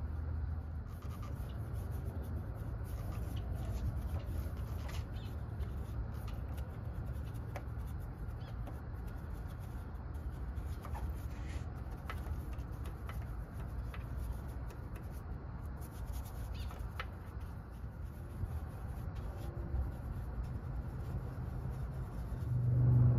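Detail brush scrubbing degreaser-coated engine parts: faint scratching, rubbing and light taps, heard over a steady low rumble.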